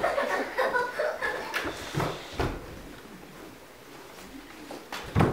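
Faint voices murmuring in a hall, fading into a quiet stretch, then a single low thump near the end.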